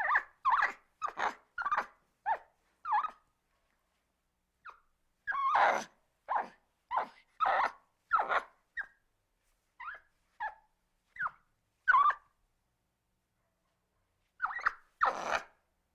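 Monkey calling: short pitched calls, about two a second, in runs of several separated by pauses of one to two seconds, with a louder, rougher call in the middle and another near the end.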